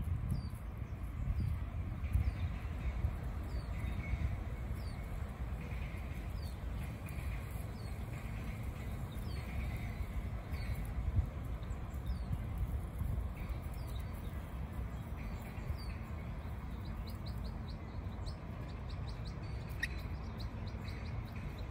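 A bird chirping repeatedly, a short, thin, falling note about every second or two, with a quicker run of notes near the end, over a steady low rumble.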